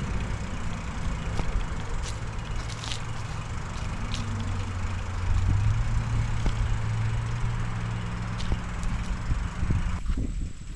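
Steady wind and road noise with the low hum of a passing motor vehicle, loudest in the middle. The noise cuts off suddenly near the end.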